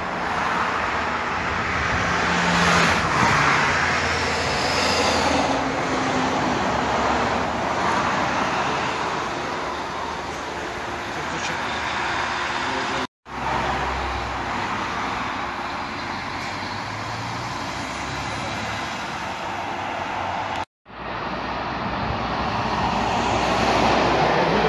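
Highway traffic: cars, lorries and a coach passing, with engine and tyre noise swelling as vehicles go by. The sound cuts out abruptly twice, for a split second each time.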